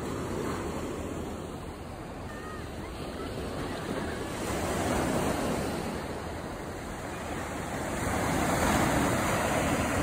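Small sea waves breaking and washing up a sandy beach. The surf swells louder about five seconds in and again near the end.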